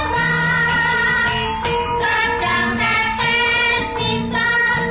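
Javanese gamelan ensemble playing a song in pelog tuning, with a female sinden singing long held melodic notes over it.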